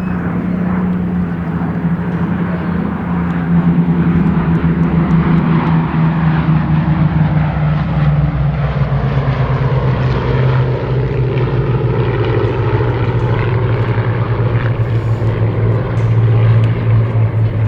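The four Wright R-1820 Cyclone radial engines of a Boeing B-17G Flying Fortress running at power, a loud propeller drone whose pitch falls steadily throughout.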